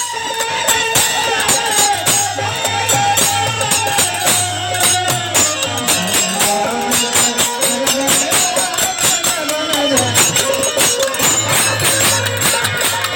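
Bhojpuri nirgun folk music, instrumental: a melody line over fast, steady tambourine-like percussion.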